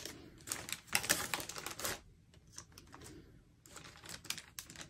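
Small plastic bags of diamond-painting drills crinkling and clicking as they are handled, in quick irregular clicks, in two spells with a pause in the middle.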